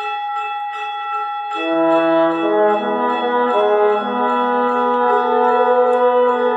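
Live symphony orchestra playing: a high, evenly repeating figure, then low brass come in about a second and a half in with long held notes.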